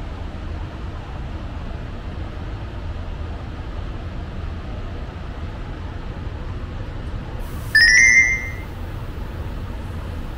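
Steady low background noise, with a single sharp metallic clink about eight seconds in that rings briefly, rising a little in pitch.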